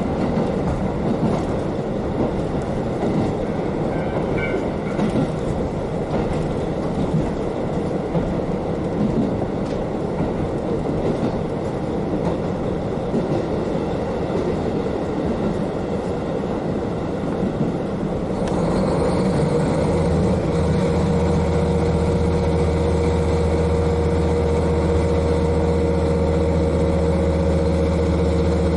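KiHa 40 diesel railcar's N-DMF13HZI diesel engine heard from directly above, over the rolling noise of the wheels on the rails. About 18 seconds in the engine note picks up and then holds a steady, louder hum under power.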